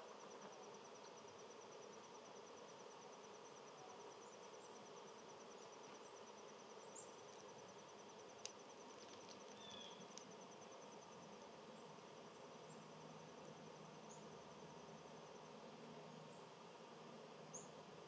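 Faint, high, steady insect trill of rapid even pulses that stops about three-quarters of the way through, over quiet outdoor background. A few faint short chirps and a single click stand out above it.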